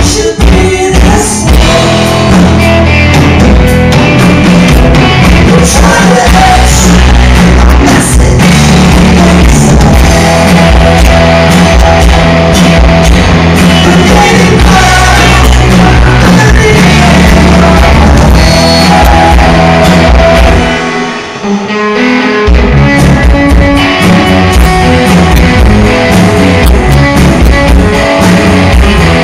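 Live rock band playing loud: electric guitars and a drum kit with a singing voice. About three-quarters of the way through, the bass and drums drop out for a moment in a short break, then the full band comes back in.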